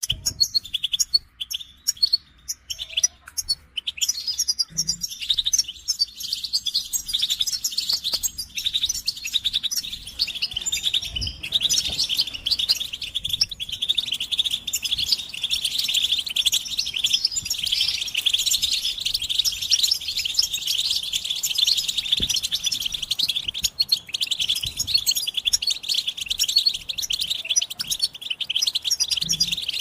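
Several European goldfinches twittering together in a fast, high, continuous chatter of chirps and trills: their mating and readiness calls. Separate calls at first, thickening into an unbroken chorus after a few seconds.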